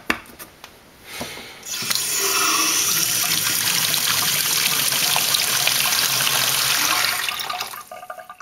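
A few sharp clicks as a 3D-printed plastic plug is pressed into a stainless steel sink drain, then the tap runs, water splashing into the sink onto the plugged drain, from about two seconds in until it fades off near the end.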